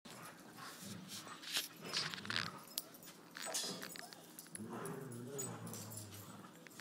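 Two terriers, an Airedale and a soft-coated wheaten, playing tug-of-war over a toy. Scuffling and short clicks come first, then low, wavering play growls through the second half.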